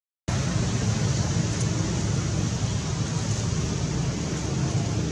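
Steady low rumbling outdoor background noise with a hiss over it, cut off completely for a split second at the very start.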